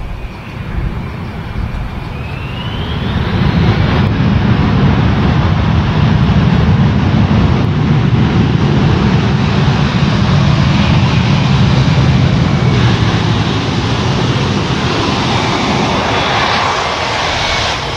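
Boeing 757's jet engines spooling up: a whine rises in pitch about two seconds in and swells into a loud, steady roar that holds and eases slightly near the end.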